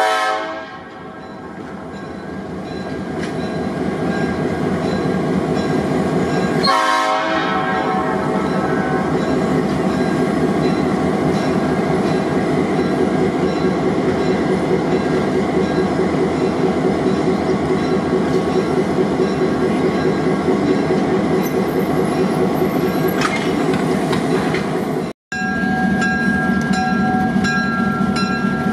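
Diesel-electric switching locomotives running steadily, their engine noise building over the first few seconds as a multi-note horn cuts off. A short horn toot sounds about seven seconds in. Near the end the sound drops out briefly and returns with a steady tone over the running engines.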